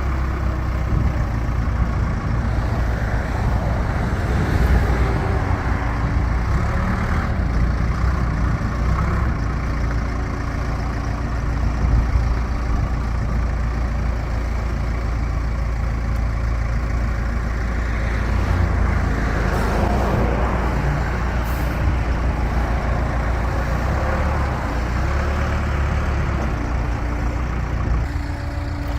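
Case 580 Super K turbo backhoe's diesel engine running steadily, its pitch rising and dipping slightly a few times.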